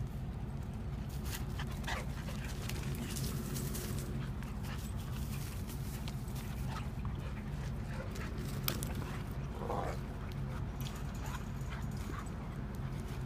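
Two dogs playing rough, with scattered scuffles and a few short whimpers, over a steady low hum.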